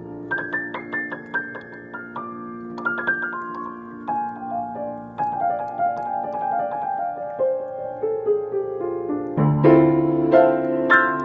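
Piano music: runs of struck notes stepping downward over held low notes, then loud full chords come in about nine and a half seconds in.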